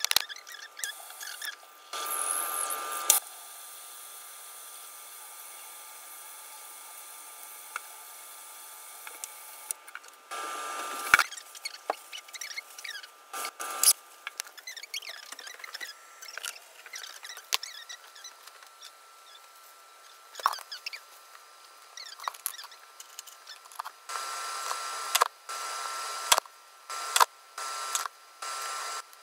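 Handling noise: a jacket's fabric rustling and the phone knocking and clicking as it is held and moved close to the clothing, with scattered sharp taps and a faint steady whine underneath.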